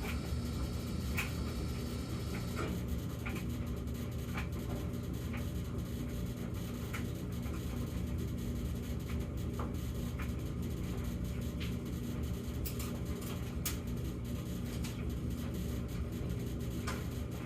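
Samsung gas dryer running, with a thin steady hum over its low drum rumble. The hum cuts off about two and a half seconds in, leaving the dryer's normal running sound with scattered light clicks. The hum is the end of a recurring humming episode whose cause is unknown.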